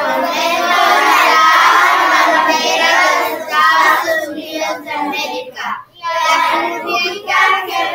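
A class of children reciting the Pledge of Allegiance in Spanish in unison, a chorus of young voices speaking in phrases with short pauses.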